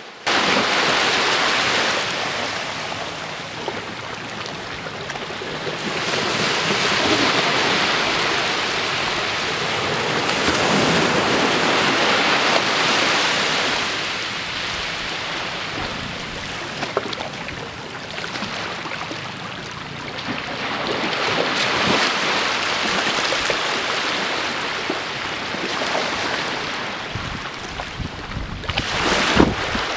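Small waves breaking and washing up a sandy beach, the surf swelling and easing every few seconds. Near the end, gusts of wind buffet the microphone.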